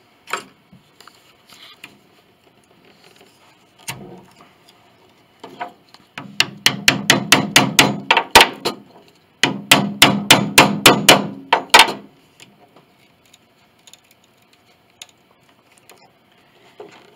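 Hammer tapping a wooden-handled chisel, working it under glued wooden beading: a few single knocks, then two quick runs of about a dozen light strikes each, some six or seven a second, with a short pause between them.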